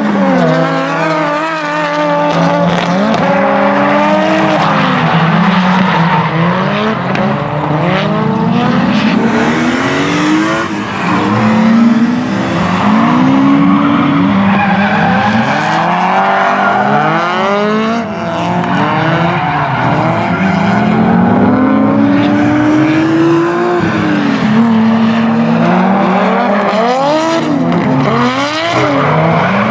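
Two drift cars sliding in tandem, their engines revving up and down over and over as they hold the slides, with tyre squeal throughout.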